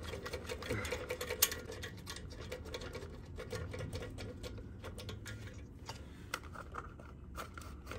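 Hand ratchet clicking in quick, irregular runs as it turns a small bolt, with pauses between strokes. A faint steady hum sits underneath.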